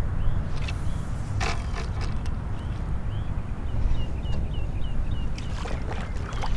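Steady low rumble of a kayak sitting on open water, with a few sharp clicks early on and a run of short, high chirps in the middle.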